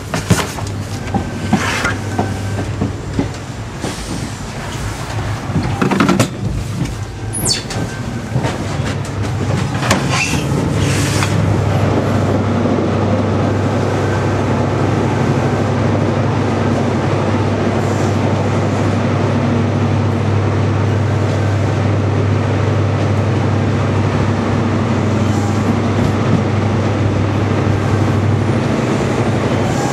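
Diesel passenger train running, heard from inside the carriage: rail joints clicking and a brief high wheel squeal, then a louder, steady rumble from about twelve seconds in as it runs through a tunnel, easing near the end as it comes out.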